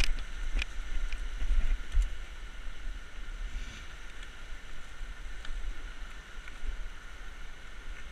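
Riding a bicycle over a rough riverside path: wind buffets the microphone in low, uneven rumbles, and the bike gives occasional sharp clicks and rattles, over the steady rush of a fast river.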